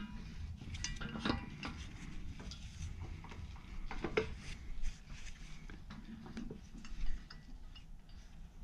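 Metal clinks and knocks of a U-joint and its bearing caps being worked into a driveshaft yoke by hand, with a few sharper knocks, the loudest about seven seconds in.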